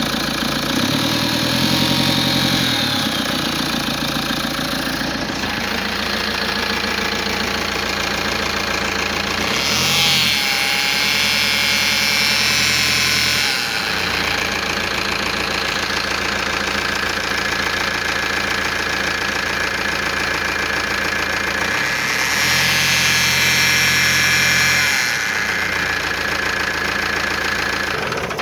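Vectra car engine running at idle, with the strange noise that the owner locates near the crankshaft damper pulley. It runs steadily, its sound changing character every few seconds.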